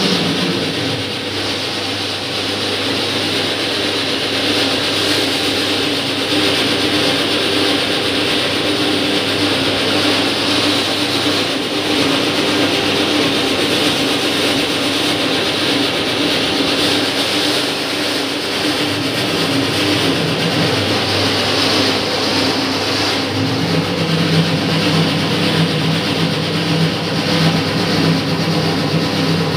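Electric 10 kg dough kneader running, its motor and belt-and-gear drive turning the mixing shaft through flour: a loud, steady mechanical hum with a wide hiss. A lower hum joins in about three quarters of the way through.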